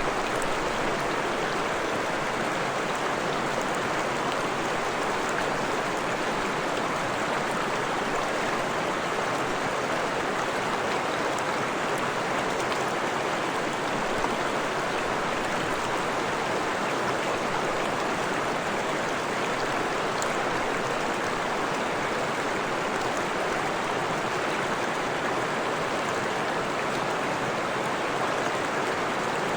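Small forest stream running over rocks, a steady rushing and babbling of water.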